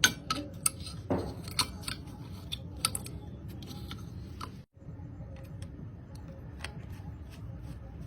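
Scattered small clicks and taps, irregular and fairly fast at first and sparser later, over a low steady background, with a brief dropout about two-thirds of the way through.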